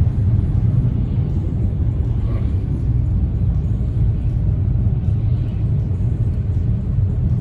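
Steady low rumble inside a moving 2018 Dodge Challenger AWD: road and drivetrain noise heard from the cabin while driving.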